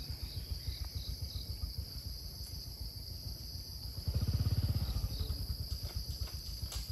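A steady high drone of insects in the forest, with a low pulsing rumble underneath that grows clearly louder about four seconds in.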